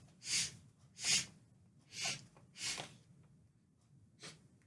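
A man sniffing hard through his nose, snorting powder: four sharp sniffs about a second apart, then a faint one near the end.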